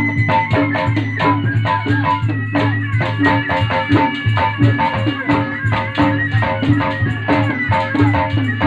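Rhythmic percussion music with quick, even drum strokes over a steady deep tone, and a held high melody line above.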